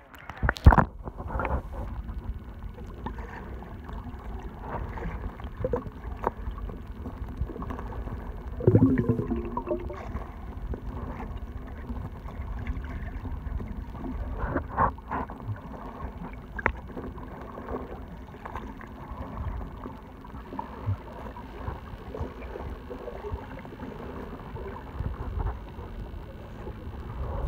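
Muffled underwater sound picked up by a submerged camera: a steady low rumble of water against the housing with scattered clicks and knocks. There is a sharp loud knock just after the start and a short gurgle of bubbles about nine seconds in.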